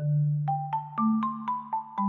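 Background music: a light, bouncy tune of struck mallet-like notes over a held bass note.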